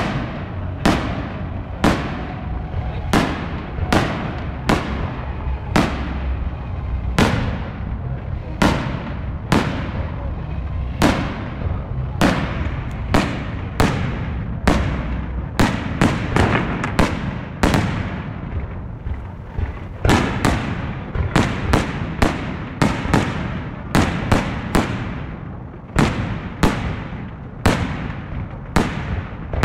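Aerial firework shells bursting in quick succession: sharp bangs about one to two a second, each trailing off in an echo, over a steady low rumble.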